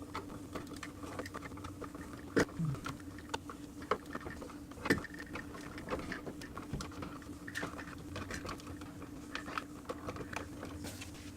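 Irregular small clicks, scrapes and knocks of a smart light switch and its wires being pushed into a wall electrical box, with two sharper knocks about two and a half and five seconds in, over a steady low hum.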